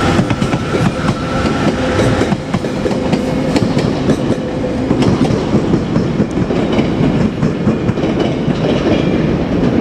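JR Kyushu 817 series electric train running past, wheels clacking over the rail joints with a steady rumble of the cars on the track.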